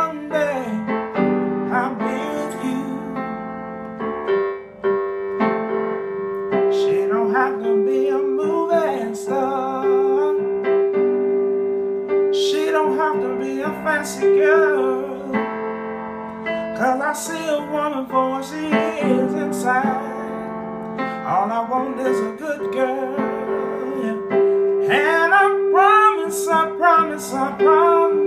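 A man singing a soul-blues song in phrases, accompanying himself on an electronic keyboard with sustained held chords.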